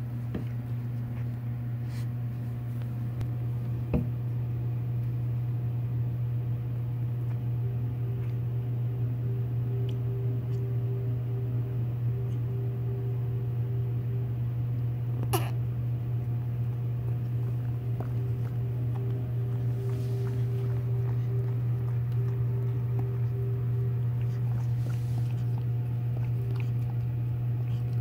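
A steady low hum, with a faint higher tone coming and going over it, and two short sharp clicks, one about four seconds in and a louder one about halfway through.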